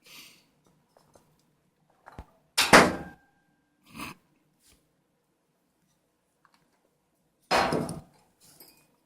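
Hard small objects clinking and rattling, in two loud bursts about five seconds apart with a softer clink between.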